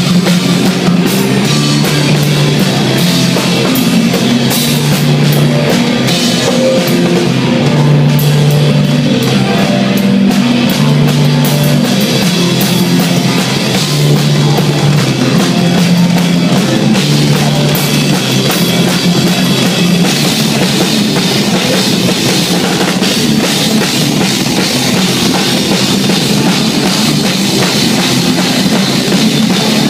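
Live rock band playing loudly, heard from right beside the drum kit: hard-hit drums and crashing cymbals up front over held guitar chords.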